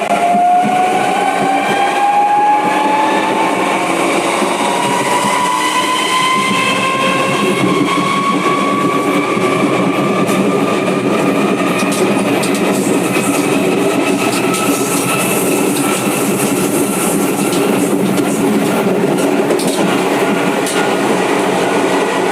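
Series 7000 electric train accelerating away, its traction motors whining in a pitch that rises steadily and levels off about halfway through. Wheels rattle and clack on the rails underneath.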